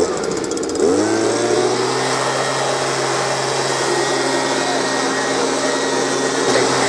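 Leaf blower spinning up about a second in, then running steadily with an airy rush.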